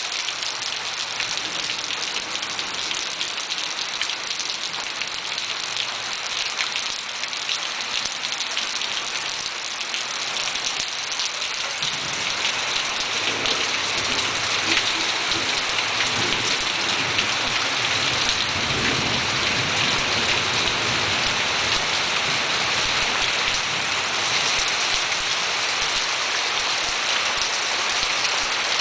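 Steady heavy rain falling on surfaces, growing a little louder about twelve seconds in, when a low rumble joins for several seconds.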